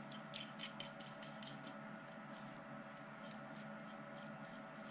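Light metallic clicks and scraping of a steel nut and bolt being handled and turned by hand, mostly in the first second, over a steady low hum.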